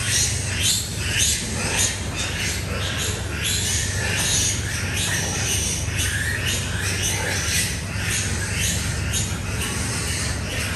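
Piglets squealing: many short, high calls that fall in pitch, repeating a few times a second and overlapping.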